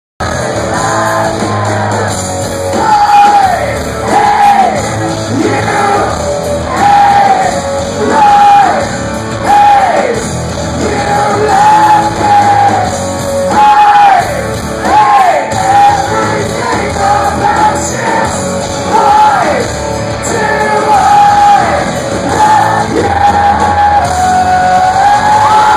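Live rock band playing loud with a lead singer; the sung phrases repeat over and over, many ending in a falling note.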